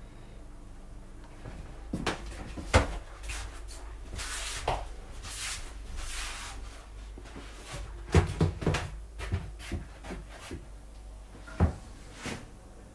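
Irregular knocks and bumps in a small wood-panelled room, with the sharpest knock nearly three seconds in, a cluster around eight seconds and another near the end, and soft rustling in between.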